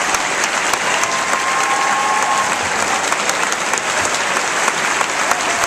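Concert hall audience and orchestra players applauding: steady, dense clapping.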